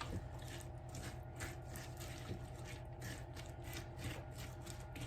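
Faint, quick clicking and scraping of kitchen utensils working in a bowl.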